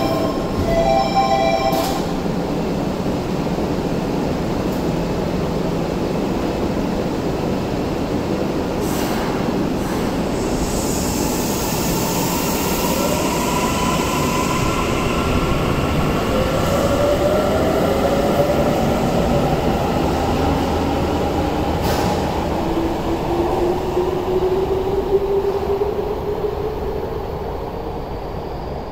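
A door chime rings as the doors of a Tokyu 5080 series subway train close, ending in a knock. The train then pulls out, its VVVF inverter motor whine climbing in pitch in several stages as it accelerates, over steady wheel and rail rumble.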